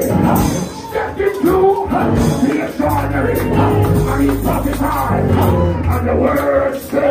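Live church praise music: a bass line and drums with cymbal hits, and a voice singing into a microphone over it.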